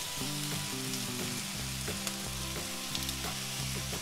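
Squid, onion and scallions sizzling steadily while being stir-fried in a nonstick frying pan with a fish-sauce-and-sugar glaze just added. Chopsticks turn the food, with a few light clicks.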